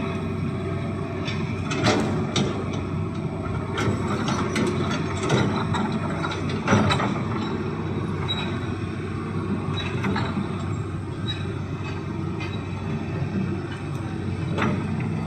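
Hitachi hydraulic excavator running steadily as it digs, with a string of sharp metallic clanks and knocks from the bucket and arm. The loudest knocks come about 2 and 7 seconds in.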